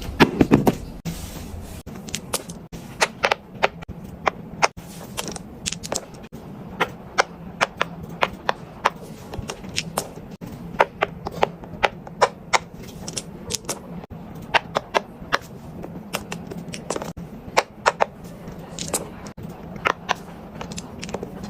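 Fidget toys being handled, making a run of sharp, irregular clicks and taps, a few a second.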